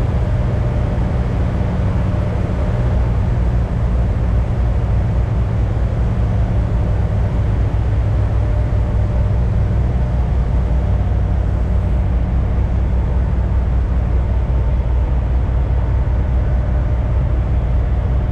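Peterbilt semi-truck's diesel engine running steadily, a constant low drone.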